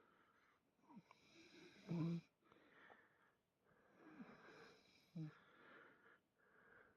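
A cat snoring faintly in slow breaths. Several breaths carry a short falling rasp, the loudest about two seconds in.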